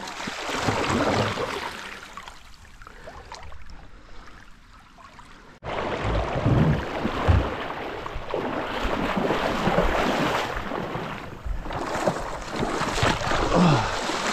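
Fast river current rushing and sloshing around a kayak. The sound breaks off sharply about five and a half seconds in and comes back louder.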